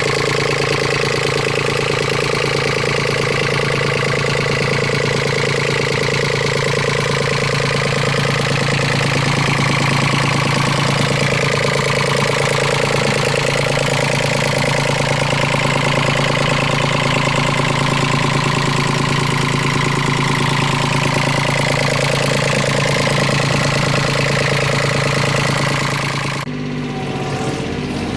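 Komatsu PC10-7 mini excavator's diesel engine running steadily, with some tones dipping and rising a little in the middle. Near the end the sound cuts abruptly to a quieter take of the machine.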